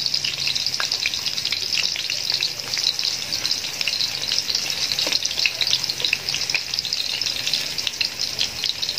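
Carrot pieces frying in hot oil in a metal wok: a steady crackling sizzle, with scattered light clicks as tongs touch the pan and turn the pieces.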